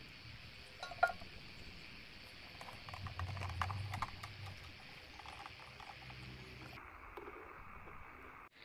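Small hand-work noises: a sharp click of pliers on a small metal hinge pin about a second in, then a cluster of light clicks and knocks as a PVC door panel is handled and fitted, over faint steady background hiss.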